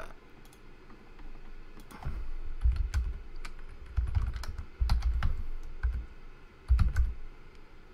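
Typing on a computer keyboard: irregular key clicks with low thuds, starting about two seconds in.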